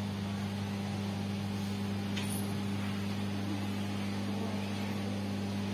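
Steady low hum over a faint hiss of room noise, with one faint click about two seconds in.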